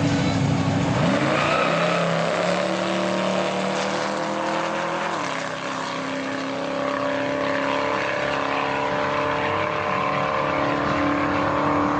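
V8 drag motorcycle engine accelerating hard down the strip: its pitch climbs, drops sharply at a gear change about five seconds in, then climbs again.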